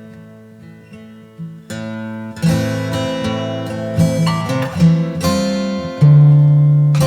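Background music led by acoustic guitar, starting quietly and growing fuller and louder about two seconds in.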